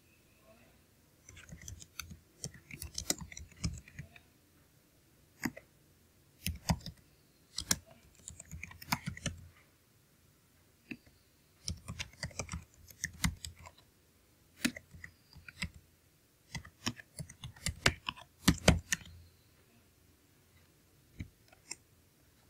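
Typing on a computer keyboard: runs of quick key clicks with short pauses between them.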